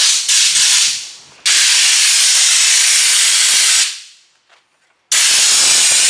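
Compressed-air blow gun hissing in three long bursts, each starting and stopping abruptly, as it blows out an air-conditioning condenser.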